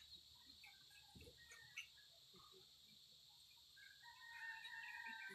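Near quiet, with faint distant chicken calls; a longer call starts about four seconds in.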